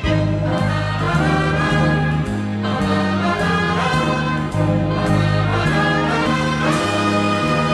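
Ballroom dance music playing loud and steady, with a bass line stepping from note to note about twice a second.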